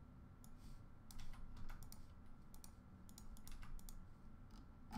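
Faint typing on a computer keyboard: scattered, irregular key clicks.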